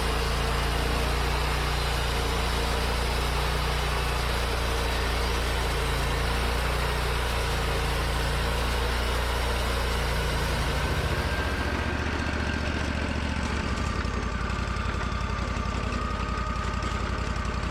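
Wood-Mizer LT40 portable band sawmill running, its band blade cutting a thin strip off a hemlock cant with a steady hiss over the engine. About twelve seconds in the cutting hiss stops and the engine keeps running.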